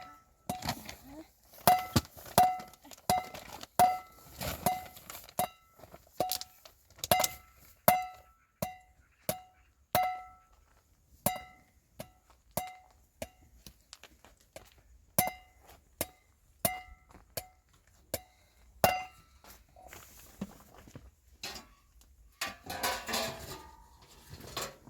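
Repeated sharp clinks of a small glass or metal object, each ringing briefly at the same pitch, about one to two a second and thinning out after about nineteen seconds, followed by a short rustling clatter near the end.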